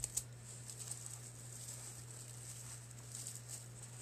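Faint rustling of raffia and fabric handled by hand, with a small click near the start, over a steady low hum.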